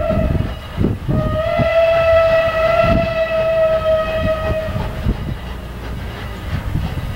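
Steam whistle of Strasburg Rail Road No. 89, a 2-6-0 steam locomotive: the tail of a short blast, then one long steady blast from about a second in to about five seconds. Under it the locomotive's exhaust chuffs as it pulls its passenger train.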